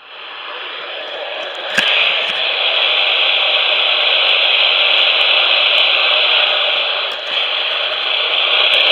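Steady static hiss from a radio receiver, swelling over the first two seconds and then holding loud, with a click about two seconds in.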